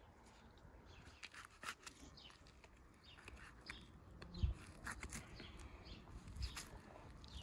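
Faint chirping of birds, in many short scattered calls, with one dull thump about four and a half seconds in.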